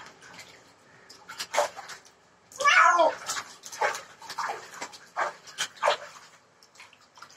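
A young cat meowing once, loudly, about three seconds in while it is washed in a bucket of water. Short sloshing and splashing sounds of water and hands come and go around the call.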